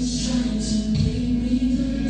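Gospel music with singing voices over a steady accompaniment.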